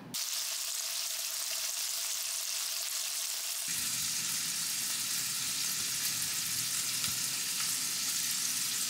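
Steady sizzling hiss like food frying in a hot pan. A little under four seconds in, a low hum joins it.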